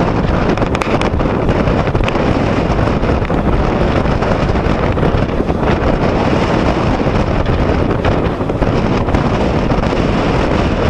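Wind rushing across the microphone on the open deck of a ferry under way, a loud, steady rush of noise.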